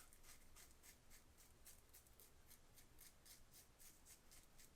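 Faint, rapid scraping of a 1940s Gillette Super Speed safety razor's blade cutting stubble, short strokes following one another several times a second.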